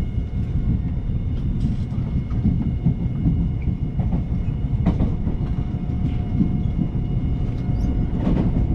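Seoul Subway Line 1 train running at speed, heard from inside the car: a steady low rumble of wheels on rail with a faint steady whine above it and a couple of light clicks over rail joints.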